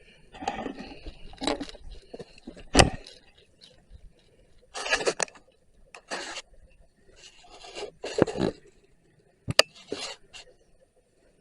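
Objects being handled in a series of short scrapes and rustles, with two sharp knocks, the louder about three seconds in and another near the end.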